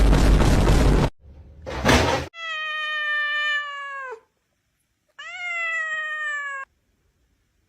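A loud rush of noise cuts off suddenly about a second in and is followed by a short noisy burst. Then a domestic cat gives two long, drawn-out meows, the second starting about five seconds in.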